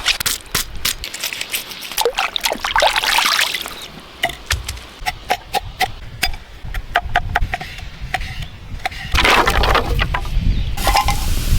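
Water splashing and trickling, with many short clicks and knocks from handling, and denser splashing around three seconds in and again after about nine seconds.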